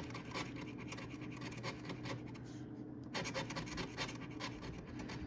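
A coin scraping the coating off a paper scratch-off lottery ticket in quick, rapid strokes. There is a short pause a little past the middle before the scratching starts again.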